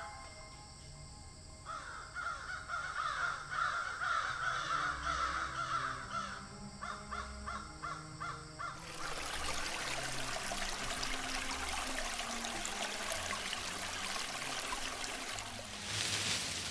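Outdoor birdsong with harsh, cawing calls from about two seconds in, over soft held low notes of background music. From about nine seconds a steady rushing hiss takes over.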